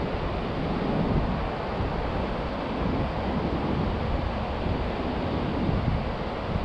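Wind rushing and buffeting on the microphone: a steady rushing noise with uneven low gusts.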